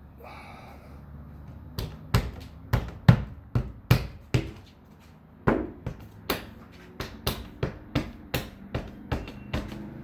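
A series of sharp thumps from the new roof moulding being knocked down into its channel on the car roof. The thumps are irregular at first, then settle into a steady beat of about three a second from about seven seconds in.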